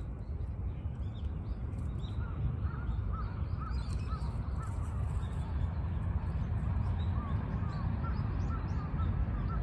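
Many short, arched animal calls repeating several times a second over a steady low rumble.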